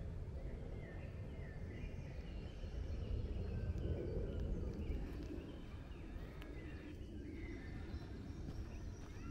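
Woodland birdsong: several short chirps and trills at different pitches, over a steady low rumble.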